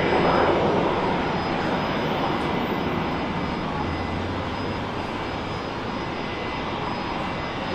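An airliner's engines give a broad, steady rush of noise that swells briefly near the start and then slowly fades.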